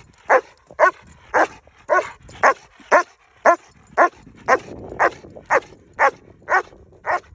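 German Shepherd protection dog barking steadily on the leash, about two sharp barks a second in an even rhythm.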